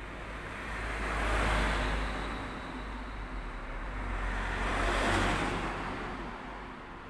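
Road traffic: two vehicles pass one after the other, their tyre and engine noise swelling and fading, the first about a second and a half in and the second about five seconds in.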